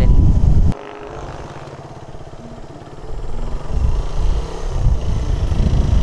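Suzuki Raider 150's single-cylinder four-stroke engine running while riding, under heavy wind noise on the microphone. The wind noise cuts off suddenly under a second in, leaving the engine's steady hum, then builds back from about three seconds in.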